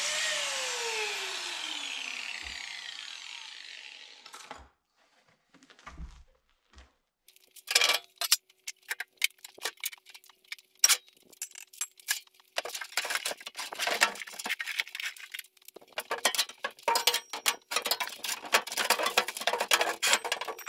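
An angle grinder spinning down after cutting steel, its whine falling in pitch and fading over the first few seconds. After a short pause comes a long run of irregular metallic clanks and knocks as steel pieces and welding gear are handled.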